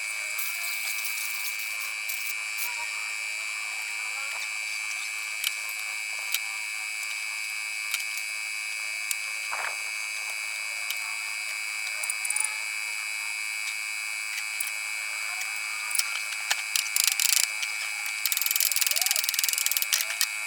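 Electric woodworking power tool running steadily with a high-pitched whine, with scattered clicks and a rougher, louder stretch near the end.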